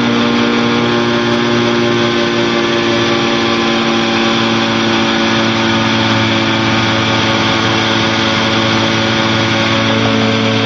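Challenger II light-sport aircraft's pusher engine and propeller running with a steady drone in cruise flight.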